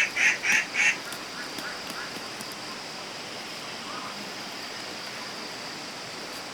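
Domestic waterfowl honking: a quick run of about four calls in the first second. After that comes a steady background hiss.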